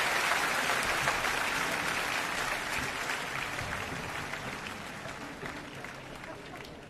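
A large audience applauding, the clapping dying away gradually until it has almost stopped by the end.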